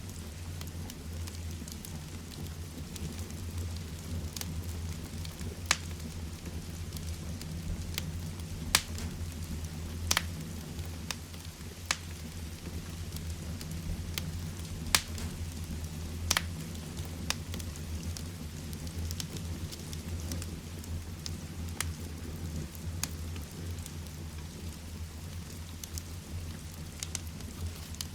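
Heavy rain together with a wood fire crackling in a fireplace: a steady low rumble and hiss of rain, with sharp irregular pops of the fire every second or so.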